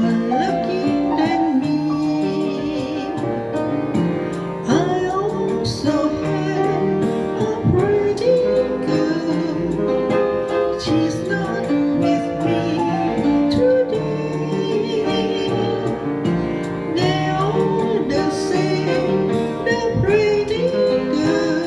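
A woman singing a cover song over keyboard accompaniment.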